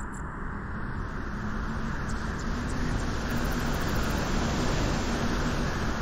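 Wind and surf at a beach: a steady rushing noise that grows louder about two seconds in.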